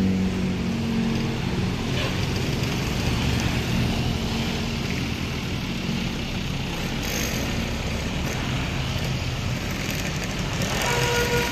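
Coach bus engine running as the bus passes, its hum fading within the first second into steady road traffic noise. Near the end a vehicle horn begins to sound.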